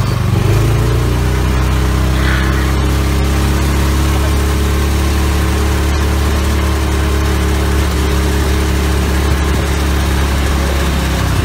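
A vehicle engine running at a steady speed: an unbroken low drone with a steady hum above it, under a constant rushing noise.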